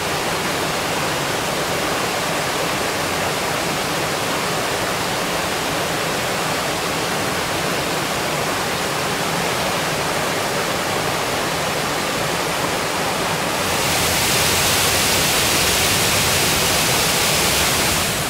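Water pouring over a small stone weir and rushing through a rocky mountain stream: a steady, even rush. About three-quarters of the way through it gets louder and hissier.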